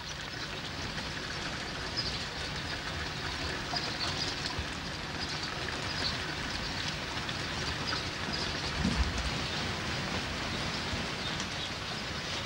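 Steady rain falling and pattering on the street and roofs.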